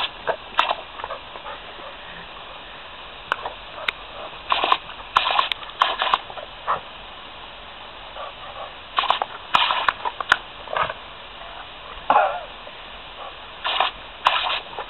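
Yellow Labrador snapping and gulping at the spray from a garden hose nozzle: clusters of quick splashy jaw snaps, three bursts of them, over the steady hiss of the hose jet.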